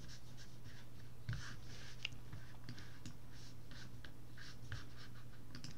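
Quiet room tone: a steady low hum with faint, soft, scattered rustles and scratches.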